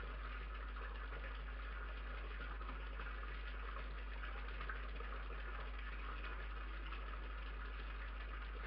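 Steady, even hiss over a constant low hum, unchanging throughout: the noise floor of a night-vision security camera's built-in microphone.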